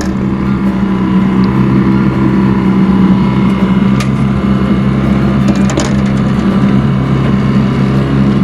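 Outboard motor running steadily, pushing a small fishing boat, with a couple of sharp knocks about four and six seconds in.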